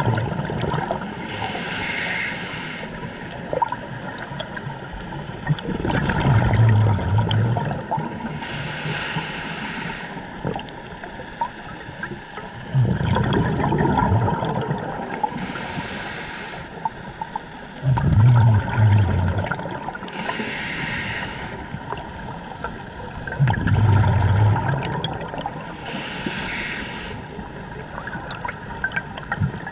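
Scuba diver breathing through a regulator underwater: a hissing inhale through the demand valve, then a low rush of exhaled bubbles, repeating about every five to six seconds, five breaths in all.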